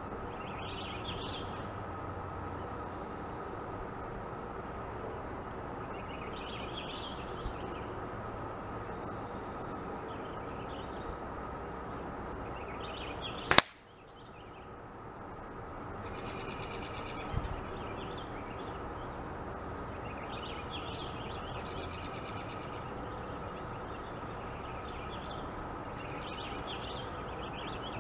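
A single sharp crack of a .177 air-rifle shot about halfway through, as the apple target is hit. Small birds chirp now and then in the background.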